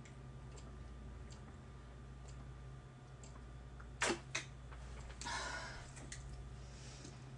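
Quiet room with a steady low hum and scattered faint clicks from a plastic water bottle being handled during a drink, with a sharper double click about four seconds in and a short rush of noise just after.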